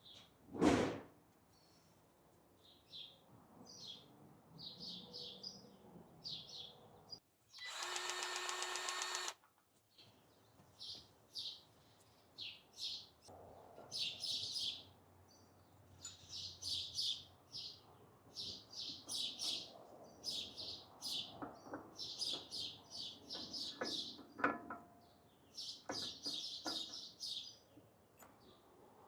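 Small birds chirping over and over in short high bursts. About a second in there is a loud knock, and around eight seconds in a steady pitched machine noise runs for about two seconds and cuts off. Scattered metal clicks and clinks of tools come in the second half.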